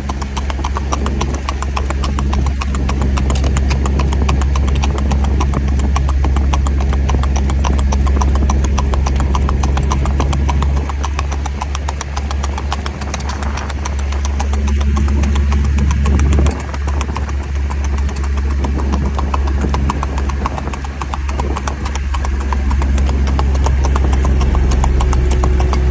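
A gaited horse's hoofbeats clip-clopping in a quick, even rhythm on asphalt, over the steady low hum of a side-by-side utility vehicle's engine running alongside.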